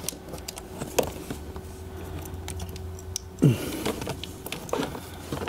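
Light clicks and taps of a CTEK battery charger lead's plastic plug and wiring being handled at a car battery, over a faint steady hum. A brief sound glides downward in pitch a little past halfway and is the loudest moment.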